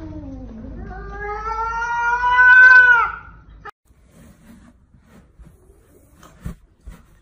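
Cat meowing: a short falling meow, then one long drawn-out meow that rises slightly in pitch, is loudest near its end and stops about three seconds in. After it, only a few faint taps.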